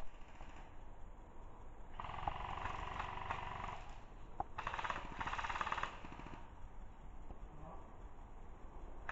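Airsoft electric guns firing two bursts of rapid full-auto fire, a stream of fast, even clicks, one about two seconds in and another about four and a half seconds in, each lasting a second or two.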